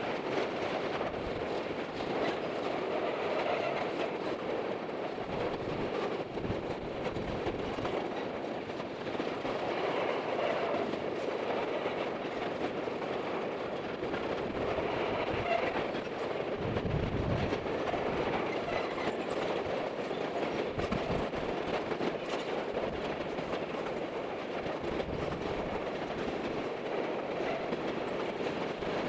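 Freight train of covered hopper cars rolling past, a steady rumble and clatter of steel wheels on the rails, with a few low thuds about two-thirds of the way through.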